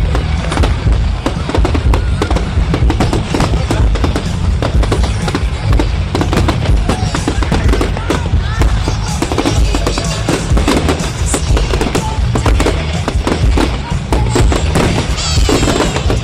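Fireworks going off in rapid succession: many sharp bangs and crackles close together, over loud music.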